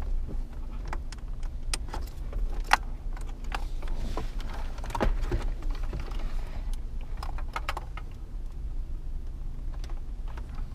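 Wiring-harness plugs being worked off the back of a 2007 Ford Taurus factory radio, with scattered clicks and rattles from the connector latches and the radio's metal case over a steady low hum.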